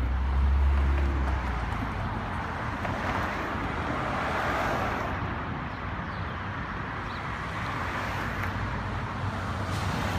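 City street traffic noise, a steady wash of passing cars that swells and fades around the middle.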